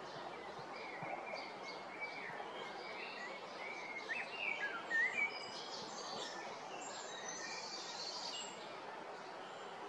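Several birds singing and calling in the trees over a steady background noise, with chirping and gliding notes that are loudest about halfway through.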